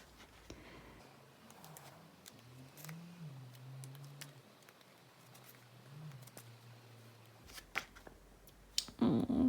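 Faint paper handling as the pages of a photo book are turned, with a few light clicks and rustles.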